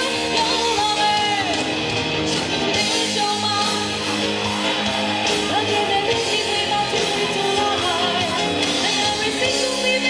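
A woman singing into a microphone over a live band, with guitar, amplified through the stage sound system.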